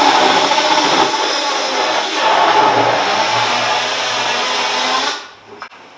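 Bosch GKS 10.8 V cordless mini circular saw running and cutting through a floorboard. Its pitch dips briefly about two seconds in, and it stops about five seconds in.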